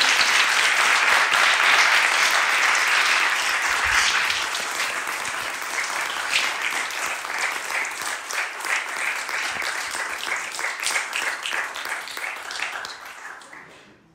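Audience applauding in a lecture room, dense at first, then thinning into scattered claps and fading out near the end.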